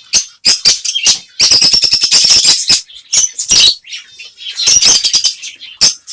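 Small pet parrots (lovebirds, cockatiels and budgies) chirping and squawking while they feed, in quick shrill bursts, with two stretches of dense chatter.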